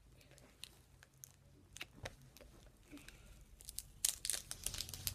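A Hershey's milk chocolate bar wrapper being torn open and crinkled by hand, with scattered small crackles that grow busier and louder near the end.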